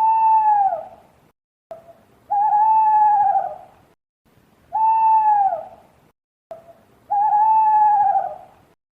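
An owl calling four times, short falling calls alternating with longer wavering ones, with a pause between each call.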